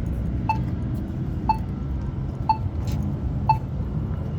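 Polara EN4 accessible pedestrian push button sounding its locator tone: a short chirping click about once a second, four in all, over a low steady background rumble.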